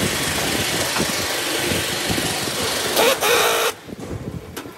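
Steady, loud mechanical noise, with a short pitched, wavering call about three seconds in. The noise then drops away sharply.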